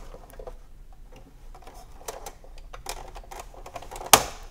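Plastic parts of a toy RC semi-truck clicking and knocking as they are folded and handled, with one loud sharp snap about four seconds in.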